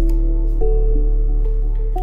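Background music: held notes that change every half second or so over a steady low bass.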